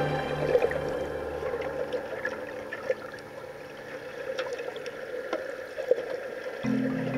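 Underwater ambience: a steady muffled water hiss with scattered small clicks and knocks. Background music fades out within the first second or so and comes back near the end.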